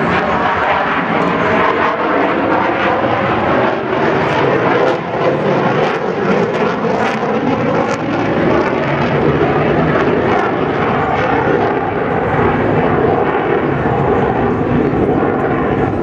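Fighter jet engine noise, loud and steady, as the jet manoeuvres overhead.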